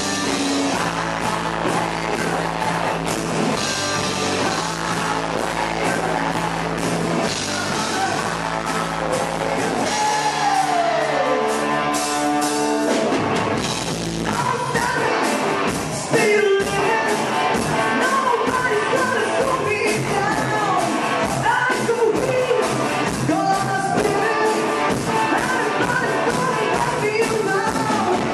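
Live rock band playing: electric guitar, bass and drums, with singing. About ten seconds in, the bass and drums drop away for a few seconds under a falling glide, then the full band comes back in.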